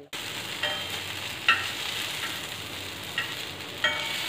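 Vegetable cutlets sizzling in oil on a hot tawa, a steady frying hiss. A metal knife clinks against the pan about five times as more pieces are slid on, the loudest clinks about a second and a half in and near the end.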